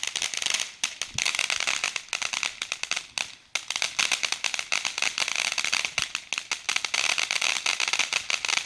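Consumer firework crackling rapidly and densely without a break, apart from a brief lull about three and a half seconds in.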